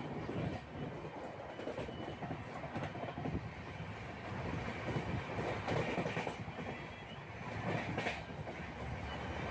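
Steady rumbling, rattling mechanical noise, like a vehicle in motion.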